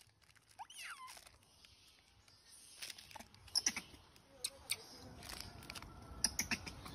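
Macaques handling food wrapped in a crinkling plastic bag: irregular crackles and clicks that grow busier after the first few seconds. A short rising squeak comes about a second in.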